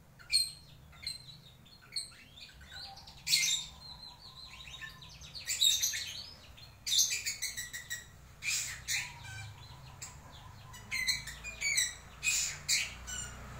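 Lovebird singing a varied run of short, high chirps and squeaky calls in irregular bursts. This is the full 'isian' song, without the long chattering 'ngekek' trill or the 'ngetik' ticking.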